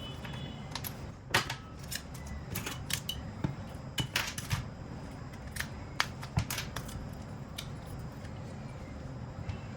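Irregular sharp clicks and taps of small plastic and metal phone parts being handled and taken apart, with a low steady hum underneath.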